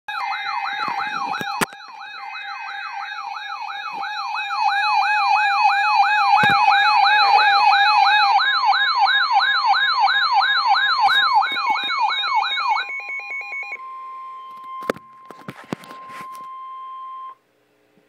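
NOAA weather alert radio sounding its alarm for a severe thunderstorm warning. A warbling siren sweeps up and down about three times a second, then gives way to a single steady tone, which cuts off suddenly near the end.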